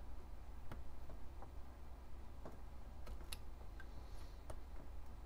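Scalpel blade cutting and chipping into a plastic model-kit part, giving a string of small, irregular clicks.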